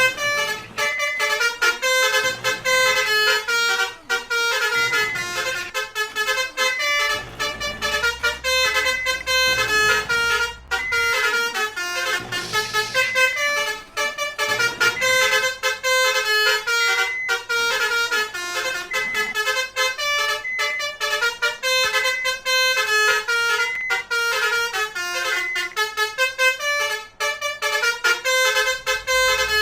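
Telolet-style basuri musical horn on a vehicle, playing a fast melody of short stepped notes that repeats over and over.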